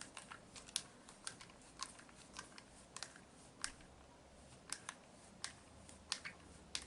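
Faint, irregular small clicks and taps, about two or three a second, of small hard parts of a model car's steering linkage being handled and adjusted by hand.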